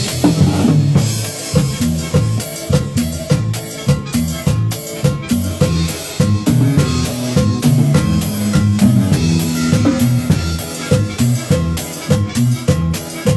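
Drum kit played with a steady beat of kick, snare and rimshot strokes for a sound check, over low pitched notes from a bass or other accompanying instruments.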